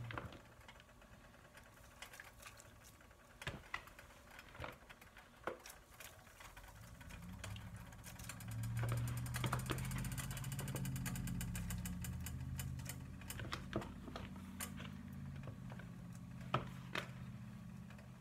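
Scattered light clicks and taps as handfuls of shredded rotisserie chicken are dropped from a plastic bowl into a pot of broth. A low hum rises about seven seconds in and fades again a few seconds before the end.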